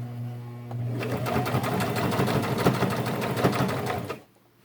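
Brother electric sewing machine stitching through a denim jeans hem: the motor hums up first, then about a second in it runs fast in a dense rattle of stitches for about three seconds before stopping abruptly.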